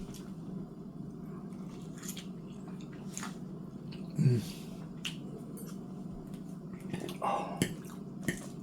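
Close-up mouth noises of a person eating: scattered wet clicks and smacks while chewing, with a short hummed 'mm' about four seconds in and another brief vocal sound near the end, over a steady low hum.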